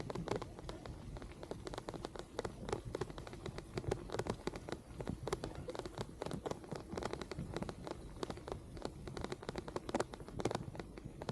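Rain pattering, with dense, irregular small taps of drops close to the microphone over a low rumble.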